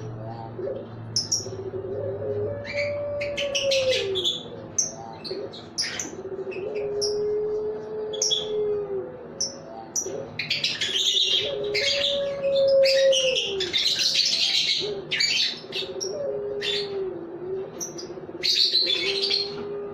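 Puter pelung Barbary doves giving long, drawn-out low coos one after another, almost without a break, while many small birds chirp over them in short high notes, busiest and loudest in the middle.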